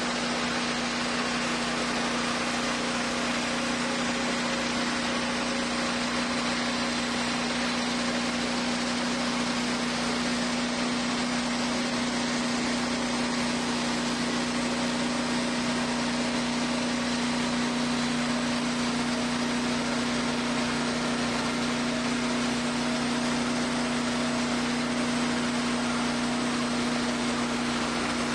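Wood-Mizer portable band sawmill running steadily: a constant hum under an even hiss that holds unchanged throughout.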